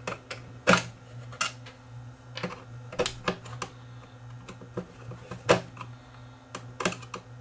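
Screwdriver working small screws out of the metal case of an old General Electric portable radio: irregular light clicks and taps of metal on metal, a few louder ones about a second in and a little past the halfway point, over a steady low hum.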